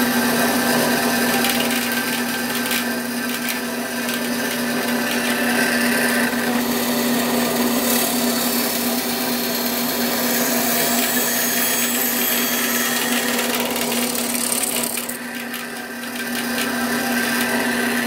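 Bandsaw running with a steady motor hum, its blade cutting through wood. The cutting noise eases briefly about fifteen seconds in, then picks up again.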